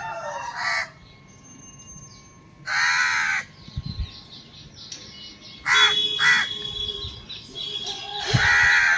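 Crows cawing: one call about three seconds in, two short caws around six seconds, and another near the end.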